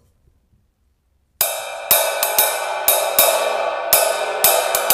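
Zildjian K Custom Left Side Ride cymbal, without rivets, played with a wooden-tipped stick. After about a second and a half of silence, a run of stick strokes on the cymbal begins, about nine in quick, uneven succession, and the wash builds and rings between them.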